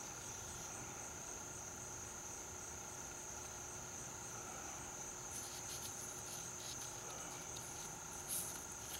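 Insects trilling in a steady, high, evenly pulsing chirp. Faint light clicks and rubbing come in the second half as an oil filter is handled and oiled around its rubber seal.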